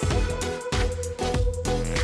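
Background electronic music with a heavy bass beat and a held synth note.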